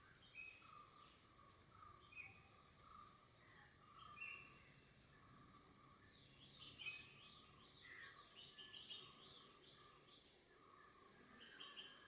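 Faint forest ambience: a steady high insect drone with short bird chirps scattered over it, and a quick run of chirps about six to seven seconds in.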